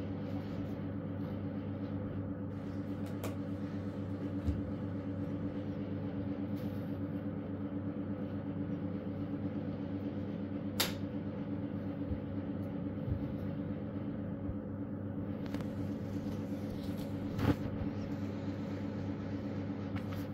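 Steady low hum of an electric household appliance running, with a few short light clinks of plates and spoons as people eat.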